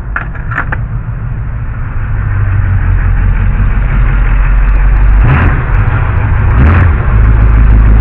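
A motor vehicle engine running close by, growing steadily louder over the first few seconds, with two short rushing noises about five and seven seconds in.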